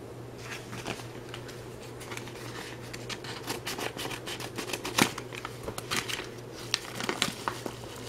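Scissors snipping through a padded mailer envelope, with crinkling of the packaging as it is handled: a run of short sharp snips and rustles, busier in the second half, the loudest snap about five seconds in.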